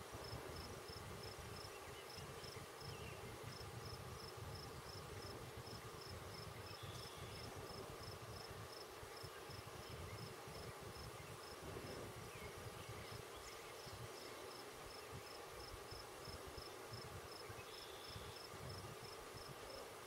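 Faint high insect chirping, a short chirp repeating about four times a second with a few brief pauses, over steady low outdoor background noise. A short higher note sounds twice, about a third of the way in and near the end.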